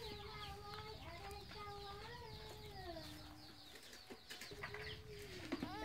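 A chicken calling in the background: one faint, drawn-out call about three seconds long that drops in pitch at its end.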